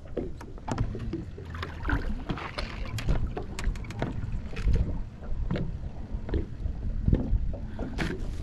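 Wind on the microphone and water lapping against a boat's hull, with scattered sharp clicks and knocks from gear being handled on the deck.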